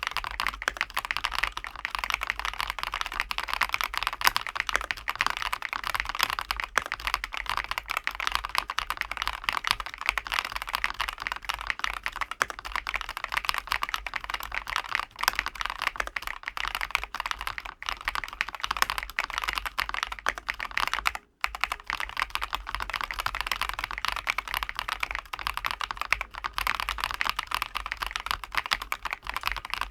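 Fast, continuous typing on a ROYAL KLUDGE M87 mechanical keyboard: a dense run of key clicks, broken by one brief pause about two-thirds of the way through.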